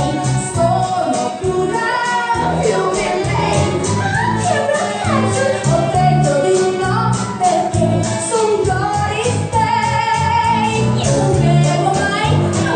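A pop song playing loudly, with a woman's-sounding sung lead voice gliding over a steady beat.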